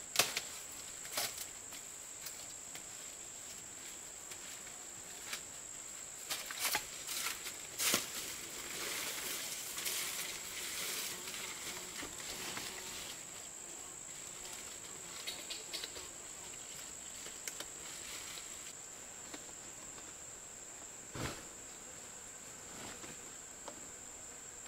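Steady high-pitched insect drone, with scattered sharp clicks and knocks, a cluster of them about six to eight seconds in and another near the end.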